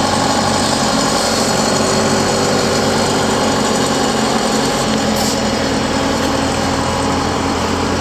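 Engine of construction machinery idling steadily: a constant, even drone with no hammer blows.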